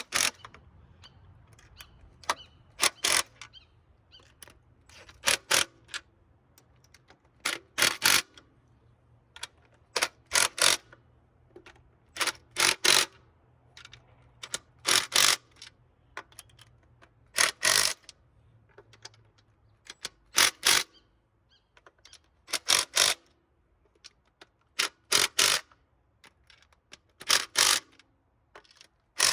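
Ratchet wrench clicking in short runs of sharp clicks, about every two and a half seconds, as the intake manifold nuts are run down and snugged, not fully tightened.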